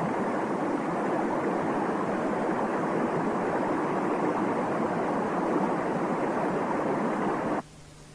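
Steady rush of fast-flowing river water, which cuts off suddenly near the end.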